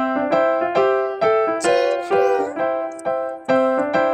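Background music: a bright electric-piano or keyboard tune playing short notes about twice a second, with a brief wavering, gliding sound about two seconds in.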